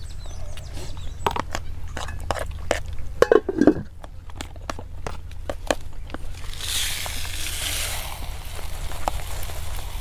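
Metal spoons clicking and scraping on plastic plates during eating, many short irregular clicks. About six and a half seconds in, a dry rustling hiss of flour being poured from a plastic jar onto a plate.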